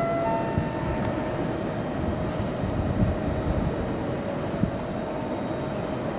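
Steady rumbling railway station platform ambience with a faint held whine.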